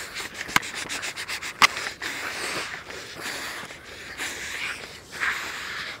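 Handling noise: cloth and fingers rubbing and brushing over the camera's microphone, with two sharp clicks in the first two seconds.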